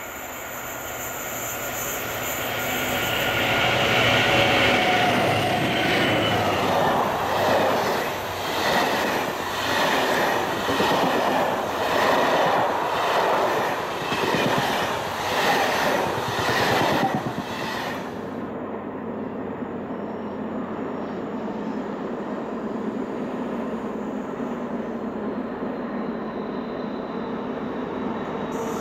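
Diesel-hauled passenger train passing close: the BB 67400 diesel locomotive's engine grows louder as it comes by, then the coaches' wheels clatter over the rail joints in a regular rhythm, one group of beats per coach. About 18 s in this gives way suddenly to a steady, quieter sound of another diesel train approaching from afar, slowly growing louder.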